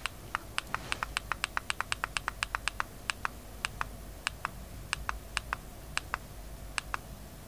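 Button of a handheld presentation remote clicked over and over, about thirty sharp clicks, each one advancing the slide. They come six or seven a second at first, then slow to one every half second or so.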